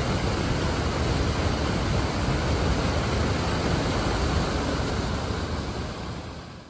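Floodwater pouring over the washed-out edge of a sealed road and churning into the scour hole below: a steady rushing that fades out near the end.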